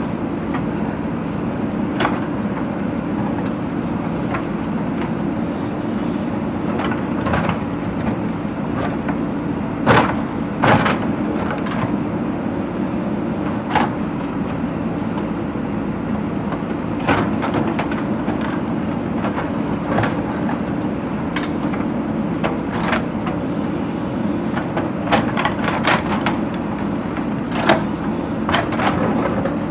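JCB backhoe loader's diesel engine running steadily under load, with scattered sharp clanks and knocks as the bucket breaks brick and stone; the two loudest knocks come about ten seconds in.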